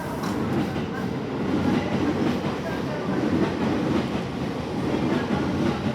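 Electric commuter train pulling out of the platform, its running noise rising and falling rhythmically as the wheels roll over the track.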